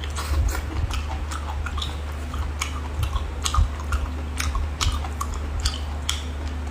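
Close-miked chewing of cooked baby octopus: irregular wet mouth clicks several times a second, over a steady low hum.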